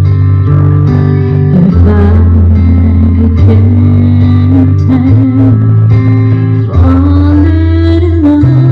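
A recorded song played loud over a sound system, with a bass line moving every second or two under guitar and a singing voice.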